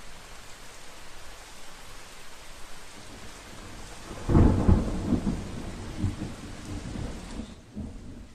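Steady rain with a loud clap of thunder about halfway through that rumbles on for a few seconds; the rain thins out near the end.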